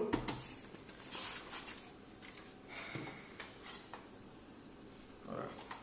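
Faint handling noises from a plastic-bodied CYMA AK-47 airsoft rifle being lifted out of its styrofoam packaging tray: light clicks and scrapes, a short rustle about three seconds in, and a brief low sound near the end.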